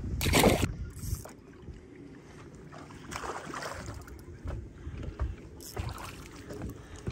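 Water and handling noise aboard a fishing boat: a short loud rush of noise in the first second, then quieter water sounds with a few light knocks.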